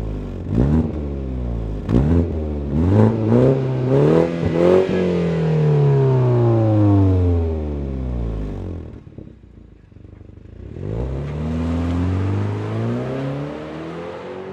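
BMW 420i's two-litre turbocharged four-cylinder, heard through a reworked rear silencer and Akrapovič tips, revved in a run of quick blips and then let fall slowly back to idle. After a lull about nine seconds in, the engine note rises again as the car accelerates, then eases off.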